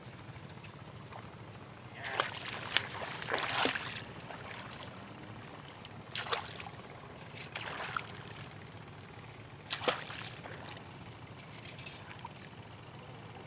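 Short splashes and sloshing at the water surface, in a cluster about two to four seconds in and again near six and a half, seven and a half and ten seconds in, over a steady low hum.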